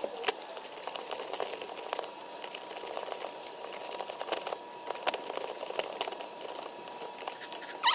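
Irregular light clicks and handling noise of a small ratchet with an E5 star socket working the screws of a blow-off valve adapter, over a faint steady high tone that rises briefly and stops near the end.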